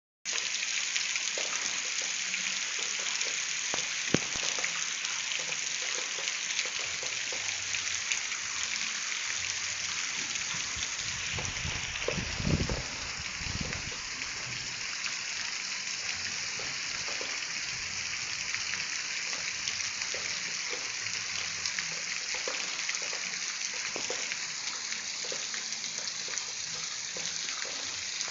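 Heavy rain falling steadily, a dense hiss with scattered drops ticking on nearby surfaces. About halfway through there is a brief low thump.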